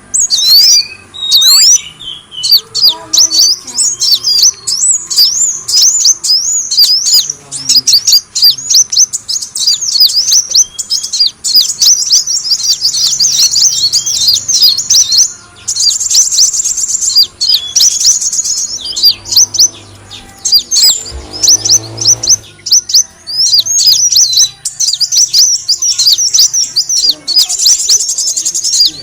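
Kolibri wulung (a sunbird) calling in a lure recording: a rapid, continuous stream of high, thin chirps and quick up-and-down notes, broken by a few short buzzy trills.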